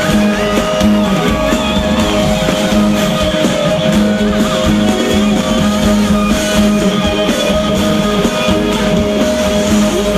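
Live rock band playing: electric guitar and drum kit with a steady beat, heard through the concert's PA.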